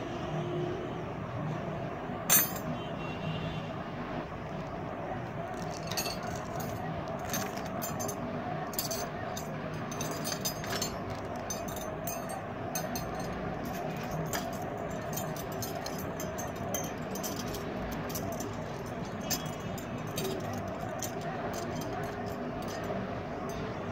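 Metal kara bracelets clinking against one another as they are handled and stacked in the hand. One sharp clink comes about two seconds in, then frequent light clinks. A steady hum runs underneath.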